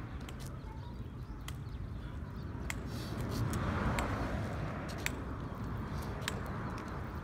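Sharp taps about once a second, irregularly spaced, from a walking cane and steps on an asphalt path, over a steady low outdoor rumble that swells about three to four seconds in.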